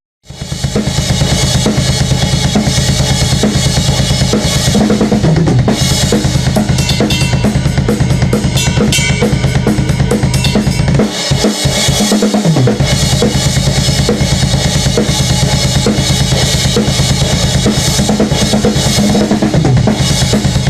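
Metal music: a drum kit playing rapid kick-drum strokes, snare and cymbals over low, sustained guitar and bass notes. The low notes drop out for about a second around eleven seconds in.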